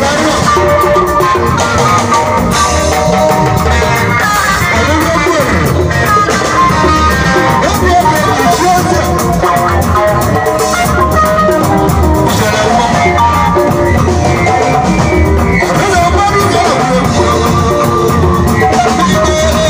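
Live band music played loud through PA speakers, with a drum kit keeping a steady beat under other instruments.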